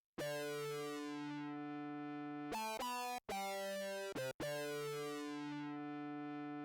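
Behringer UB-1 Micro analogue synthesizer playing a factory preset dry, one note at a time: a long held note whose bright top fades over about a second, a quick run of four or five short notes, then another long held note.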